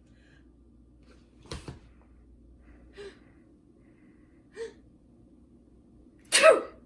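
A person's short gasping inhales, a few seconds apart, building to a loud sneeze near the end.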